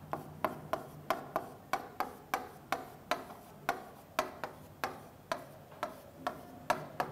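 Marker pen tapping and ticking against a whiteboard as words are written: a quick, slightly uneven run of sharp ticks, about three a second.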